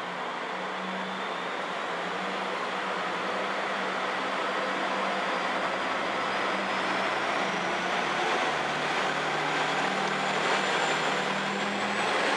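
Single-car JR West KiHa 120 diesel railcar pulling into a station platform: its engine hums low and steady over the noise of the wheels on the rails, growing louder as it draws near. A faint high whine rises slowly in pitch during the approach.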